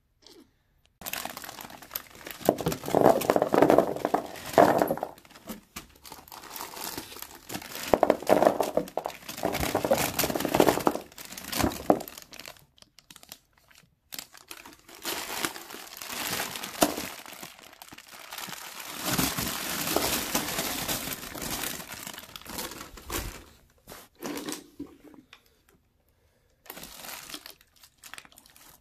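Plastic candy packaging crinkling as it is handled and packed into a gift box, in irregular bursts with short pauses.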